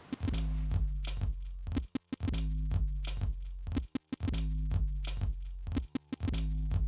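Background music with a steady electronic drum beat and bass line, breaking off briefly about every two seconds.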